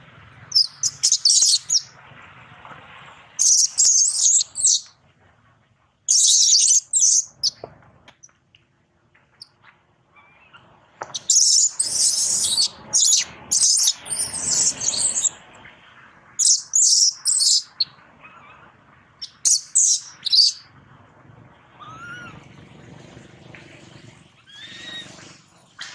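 Infant macaque screaming in shrill, high-pitched bursts, about a dozen clusters of rapid squeals with short pauses between. Near the end come a few softer, rising calls.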